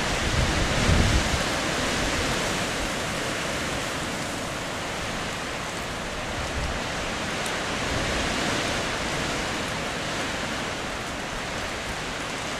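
A steady rushing hiss of outdoor background noise with no distinct events, with a few low rumbles in the first second and a half.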